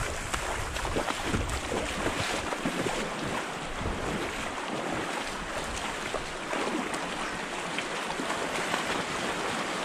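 Shallow river water running and lapping close to the microphone, with small splashes. A low rumble on the microphone fades out about two and a half seconds in.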